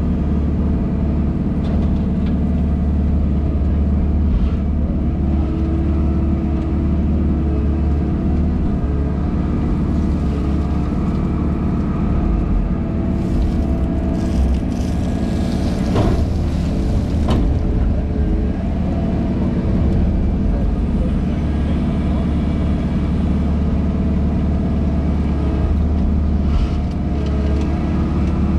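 Engine of a JCB wheeled excavator running steadily under load, heard from inside the cab, while its hydraulics work the digging arm. Two sharp knocks come about halfway through.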